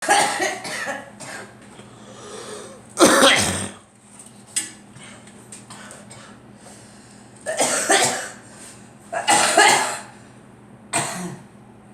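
A girl coughing in short, harsh bouts, five of them a few seconds apart.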